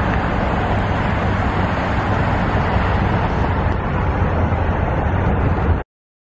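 Steady road noise of a moving car: a low rumble with hiss above it, cutting off abruptly about six seconds in.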